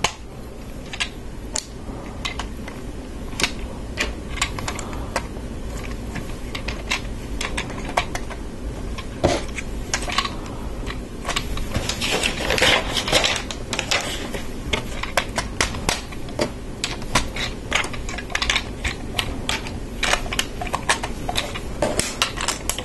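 Plastic Lego bricks clicking and snapping together as pieces are pressed onto a model, in irregular sharp clicks, with a busier stretch of clatter about halfway through.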